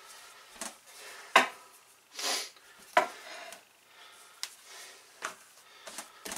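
Rolling pin working suet dough on a floured board: soft rubbing and dough handling, with a few sharp knocks as the pin bumps and is set down on the board, the loudest about a second and a half in and at three seconds.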